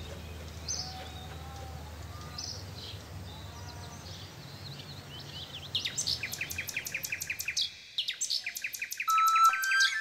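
A bird singing: a few faint chirps over a steady outdoor hum, then about six seconds in a fast chirping trill of about six notes a second. Near the end, long held whistled notes lead into flute music.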